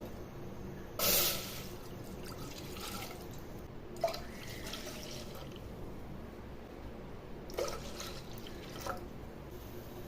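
Short splashes of water, four in all, the loudest about a second in, over a low steady hum.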